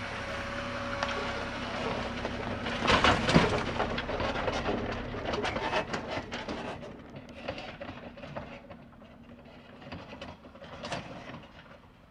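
Jeep Wrangler running slowly on a rough dirt trail, its engine humming, then the Jeep and its towed off-road trailer rattling and clattering over the bumps. The clatter is loudest about three seconds in and fades as they drive away.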